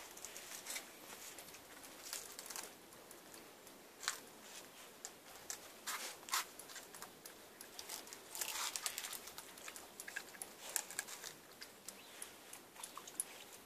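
Dogs gnawing and crunching on a coconut, with irregular cracking clicks and scraping on stone paving.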